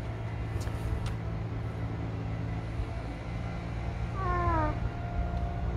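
A cat meowing once, a short call that falls in pitch, about four seconds in, over a steady low rumble.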